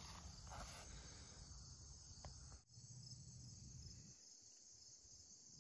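Faint, steady chorus of insects trilling, over a low rumble that dies away about four seconds in.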